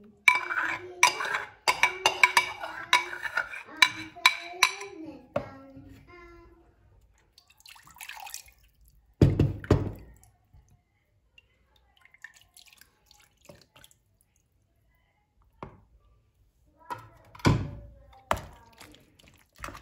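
Dishes and utensils clinking rapidly for the first few seconds, then two dull thumps, about nine and seventeen seconds in.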